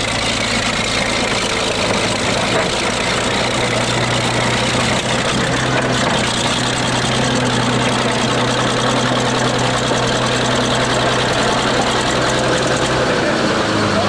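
Crawler bulldozer's engine running steadily, its note dropping a little near the end.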